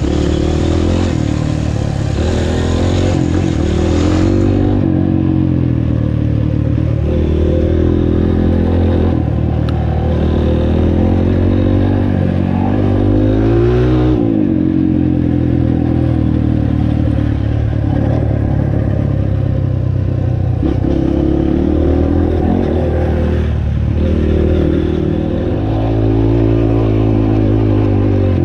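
Dirt bike engine running under way, its pitch rising and falling over and over as the rider works the throttle and gears.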